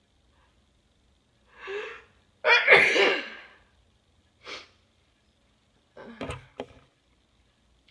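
A person sneezes once, loudly, after a short drawn-in "ah" breath. A quick breath and a few short sniffs and nose sounds follow.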